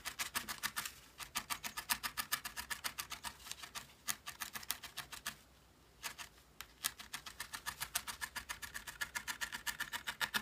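Single felting needle rapidly stabbing wool into a foam pad, an even run of light pokes about eight a second, shaping the felted piece. The poking pauses briefly about halfway through, then carries on.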